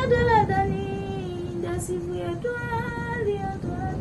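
A high voice singing unaccompanied, holding long notes that step down in pitch and then rise again, over a low steady background rumble.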